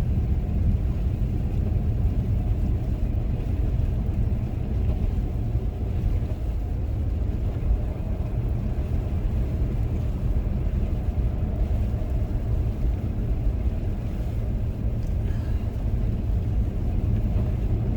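Steady low rumble of a car driving on a snowy highway, engine and tyre noise heard from inside the cabin.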